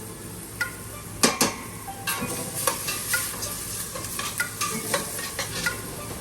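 A spoon stirring and scraping in a pot of onion, garlic, pimento and thyme sautéing in oil, the oil sizzling steadily, with irregular clicks of the utensil against the pot, two sharp knocks a little over a second in.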